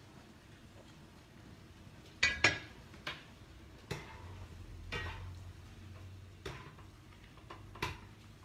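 Metal ladle and spatula knocking and scraping against a frying pan while stirring egg and chives. The first two seconds are quiet, then come a handful of separate clinks and knocks, the loudest about two and a half seconds in.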